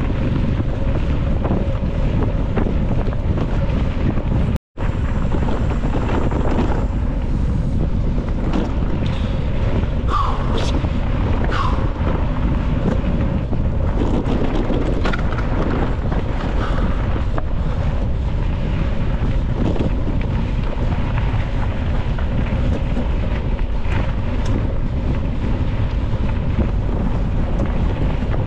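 Steady wind rush buffeting the microphone of a camera on a mountain bike riding fast down a dirt singletrack, with the rumble and rattle of the tyres and bike over the ground. The sound drops out for an instant about five seconds in.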